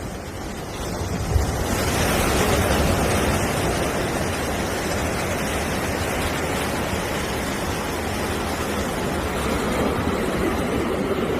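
Ocean surf, a wave swelling to a steady wash over the first two seconds and holding on.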